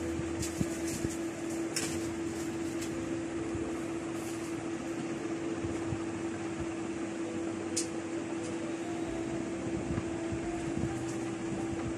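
Steady machine hum in a small room, a constant mid-pitched tone over a noisy hiss, with two faint clicks about two seconds in and near eight seconds.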